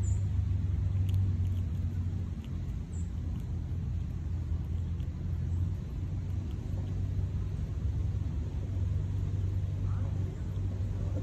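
Steady low engine rumble with a hum, dipping slightly now and then.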